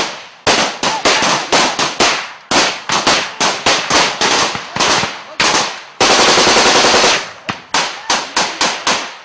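Small-arms gunfire in combat: irregular single shots and short bursts from automatic weapons, with one sustained burst of about a second around six seconds in.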